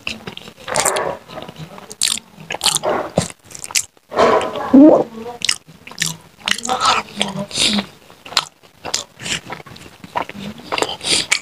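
Close-up mouth sounds of a person eating rice and curry by hand: wet chewing with many sharp lip smacks and clicks. There is a brief sound from the voice about halfway through.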